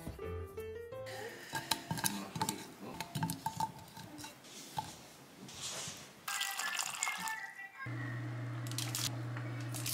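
Radish slices being laid into an enamelled cast-iron Staub pan with light clicks and taps, then water boiling in the pan with a steady low hum from about eight seconds in. Soft background music plays underneath.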